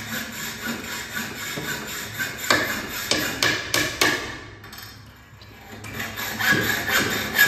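Claw hammer knocking on wood, a string of irregular blows with the loudest strikes about two and a half to four seconds in. The knocking pauses for about a second and a half, then resumes near the end.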